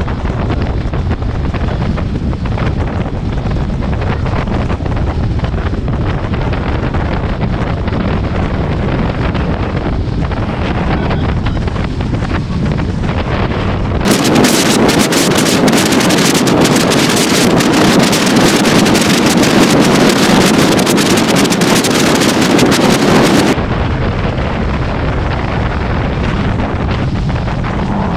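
Wind rushing over the microphone of a motorbike rider at road speed, a steady noisy rumble. About halfway through it turns brighter and a little louder for some nine seconds, then drops back to the duller rumble.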